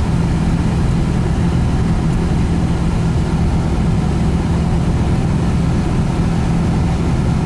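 Engine and road noise of a moving motor vehicle: a steady low drone.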